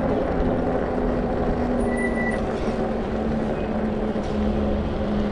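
Steady rolling and wind noise of a bicycle riding along a paved path, with a low steady hum underneath. A brief high tone sounds about two seconds in.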